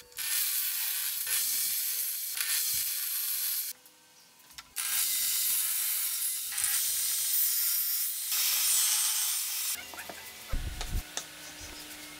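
Table saw cutting through a wooden board, a loud steady high hiss in two long passes with a sudden break of near silence between them. After that come quieter light knocks and rubbing as the cut pieces are handled on a bench.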